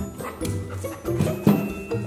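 Background music with a bass line and short, quickly changing notes.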